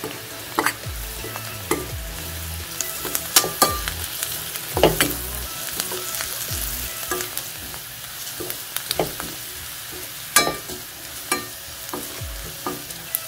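Onions and ground spices frying in butter and oil in a stainless-steel pan with a steady sizzle. A spatula stirs them, with irregular knocks and scrapes against the pan.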